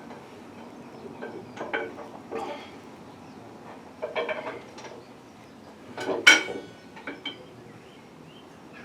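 Several separate clattering knocks and metallic clinks, the loudest about six seconds in with a short metallic ring.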